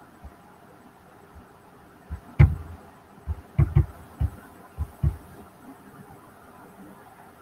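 A string of short, irregular low thumps, about ten over three seconds, the sharpest about two and a half seconds in, over a faint steady hiss.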